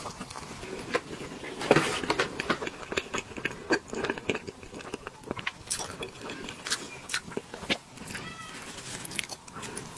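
Close-miked mouth sounds of someone eating soft, moist tiramisu cake: wet chewing and lip smacks, with a short squeaky sound a little past eight seconds in.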